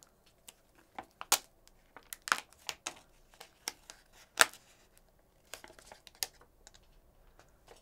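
Protective plastic film being peeled off a new phone, quiet crinkling with irregular sharp crackles and clicks.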